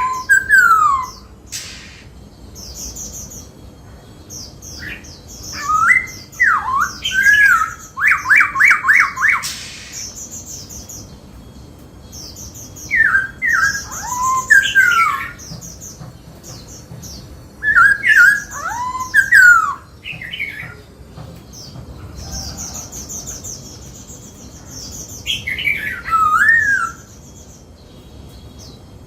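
A black-throated laughingthrush singing loud, varied whistled phrases that swoop up and down, in bursts every few seconds. A fast run of repeated notes comes near the middle, and high chattering notes fall between the phrases.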